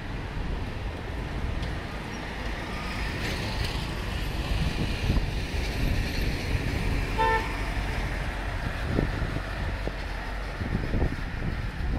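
Street traffic noise from passing vehicles, with one short toot of a vehicle horn about seven seconds in.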